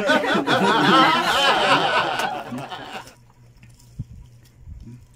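People laughing heartily for about three seconds, then it goes quiet, leaving a single click and a few soft handling knocks.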